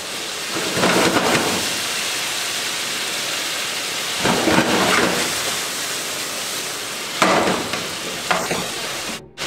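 Diced pancetta sizzling in a frying pan with a splash of pasta cooking water in it, stirred with a spatula. The sizzle swells three times, about a second in, around the middle and near the end, and drops out briefly just before the end.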